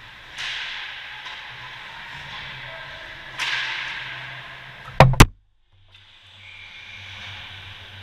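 Ice rink ambience with a steady low hum and two bursts of scraping hiss from skates on the ice, then two very loud sharp knocks on the camera about five seconds in, as it is jolted to a new angle. The sound cuts out for about half a second after the knocks.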